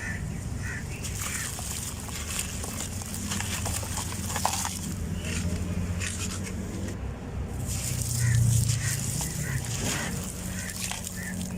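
Sand-cement shapes crumbling, with short crackling crunches and grains trickling, over a steady low hum that swells about eight seconds in.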